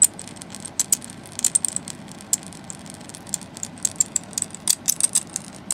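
High-voltage arc from a television flyback transformer crackling as it burns and climbs between the two wires of a Jacob's ladder: irregular sharp snaps, several a second, over a low steady hiss.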